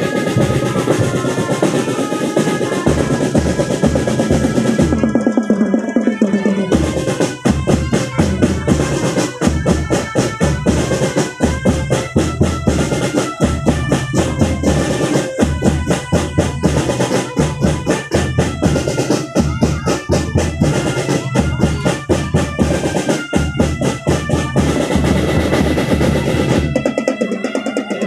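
Marching band playing: brass carry a melody over a drumline of snare and bass drums, with a snare roll a few seconds in, then steady rhythmic drumming under the brass.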